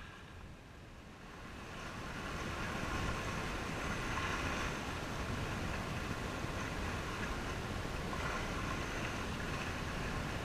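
Wind on the microphone and choppy sea water washing against the pier, a steady rushing noise that grows louder about two seconds in.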